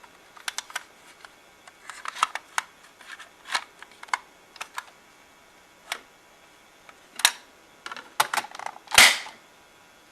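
Scattered clicks and knocks of hard plastic as the upright vacuum's onboard turbo tool is handled on its holder, with the loudest knock near the end.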